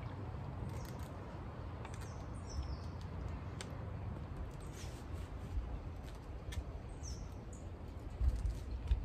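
Small birds chirping now and then, in short falling chirps, over a steady low rumble, with a few dull low thumps near the end.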